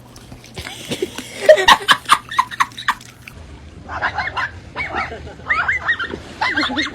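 An animal giving a series of short, squeaky calls that bend up and down in pitch, after a quick run of clicks and knocks in the first few seconds.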